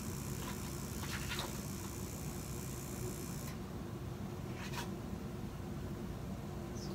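Steady low indoor background hum, with a high hiss that stops about three and a half seconds in. A few short soft clicks or rustles come about a second in and again near five seconds.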